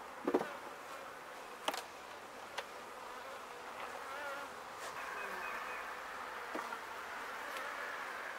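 Honeybees buzzing over an opened hive, a steady hum that grows a little louder about halfway through as a hive body is lifted off and the bees are disturbed. Three sharp knocks in the first three seconds, the first the loudest, as the wooden hive boxes are handled.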